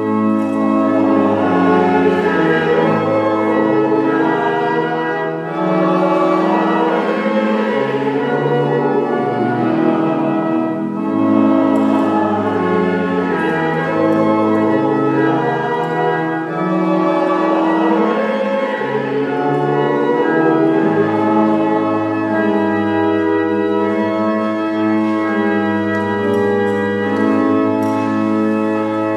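Church organ playing slow, sustained chords that change every second or two, loud and unbroken.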